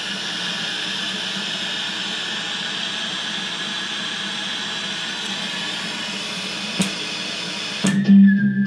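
Steady hiss of static from the speaker of a 1968 Admiral color TV tuned to an empty channel. Near the end there is a sharp click, then the hiss cuts off suddenly and program sound with music comes in as the set is switched to a station.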